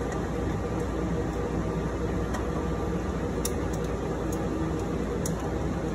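Steady hum and hiss of equipment-room ventilation and cooling fans, with a few faint small ticks as screws are started by hand into a fan's threaded inserts.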